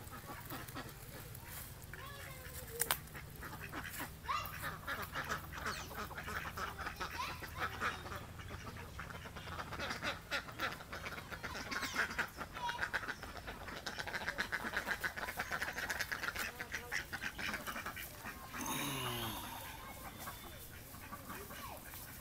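A flock of domestic ducks quacking, with rapid, overlapping runs of quacks that are busiest in the middle, and a single sharp click about three seconds in.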